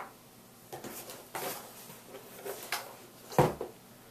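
Handling noise from bagged soft-plastic fishing lures: plastic rustling and crinkling in short bursts, a sharp click at the start and a thump on the table about three and a half seconds in.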